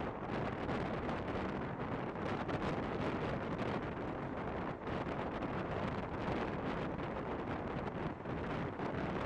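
Steady running noise of a moving train, with wind buffeting the microphone.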